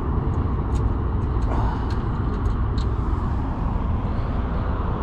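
Steady low outdoor rumble with a few faint, sharp clicks scattered through it.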